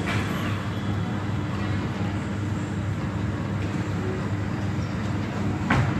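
Steady low hum of bowling-centre machinery, with a short sharp knock near the end.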